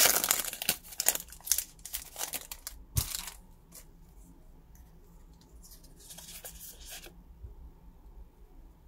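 Foil wrapper of a Pokémon TCG Cosmic Eclipse booster pack torn open and crinkled by hand, loud for the first three seconds or so. Then quieter handling of the cards, with a short rustle about six seconds in.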